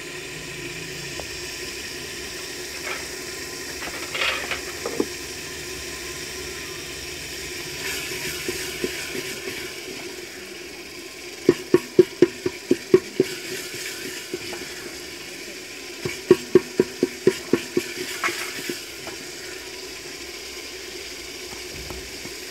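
Tomato-onion masala simmering in an aluminium pot, a steady low sizzling hiss. About halfway through, a wooden spoon stirs it, knocking quickly against the pot's metal sides in two runs of rapid taps a few seconds apart.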